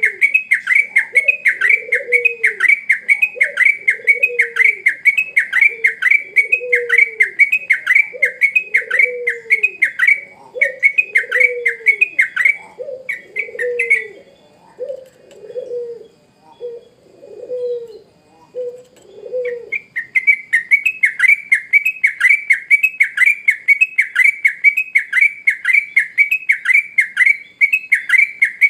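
Yellow-vented bulbul (trucuk) singing a fast, regular run of repeated calls, about two and a half a second, which stops about halfway through and resumes about six seconds later. Lower falling notes, about one a second, come alongside it until shortly before the song resumes.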